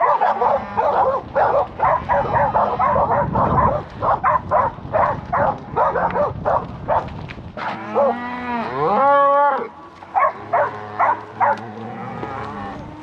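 A herd of cattle bawling and mooing, many short calls overlapping in quick succession. About eight seconds in, one long drawn-out moo rises and falls.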